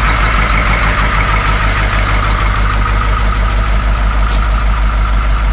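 Old Ford dump truck's engine idling steadily, running smoothly: it "purrs like a kitten".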